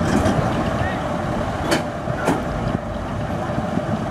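Diesel truck engines running at idle, a steady low rumble, with two sharp clicks about half a second apart a little under two seconds in.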